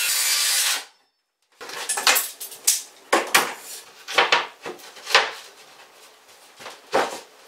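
A handheld circular saw cutting through a wood sheet for under a second, cut off abruptly. After a short silence comes a string of about ten wooden knocks and clatters as cut panels are set down and slid into their frame.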